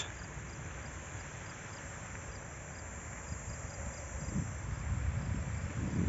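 Faint outdoor ambience: a steady low hiss with wind rumbling on the microphone, growing stronger in the second half, and faint, regular insect chirps.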